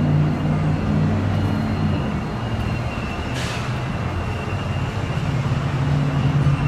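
Steady low engine drone that eases slightly in the middle and builds again near the end, with a brief hiss about three and a half seconds in.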